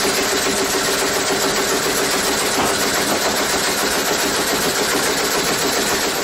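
Sawmill machinery running steadily: a dense, even whirring hiss over a constant hum.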